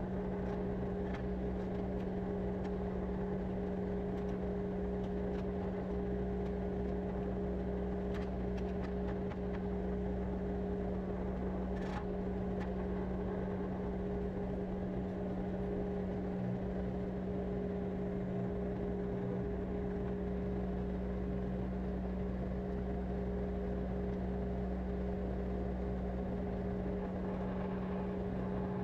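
Skid steer's diesel engine idling steadily, a constant hum with a low rumble. A couple of light knocks are heard, the clearer one about twelve seconds in.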